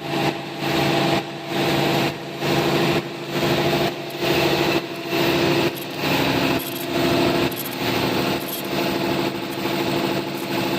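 OCM12 ultrasonic paper cup machine running on test with its air compressor: a steady mechanical hum with a rhythmic surge repeating a little faster than once a second.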